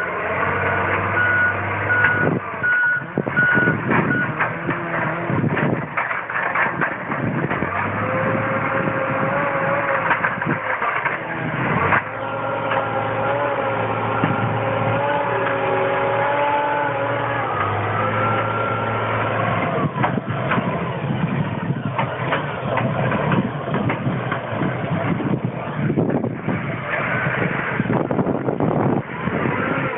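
New Holland wheel loader's diesel engine running and changing pitch as it works, with its reversing alarm beeping in a steady even rhythm until about four seconds in.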